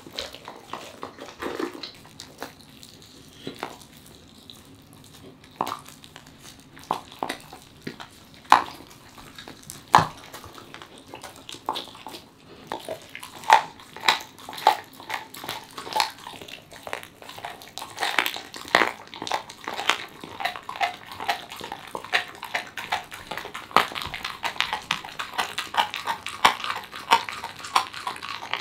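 A corgi chewing raw chicken, wet smacking and sharp crunches of bone. The crunches are scattered in the first half, then come quickly and steadily from about halfway on.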